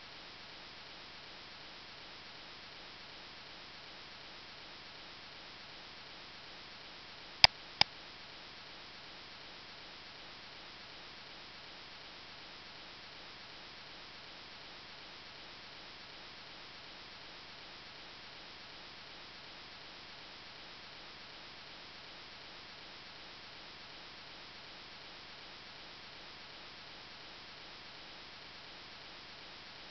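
Steady faint hiss of room and microphone noise, with two sharp computer mouse clicks about a third of a second apart some seven and a half seconds in.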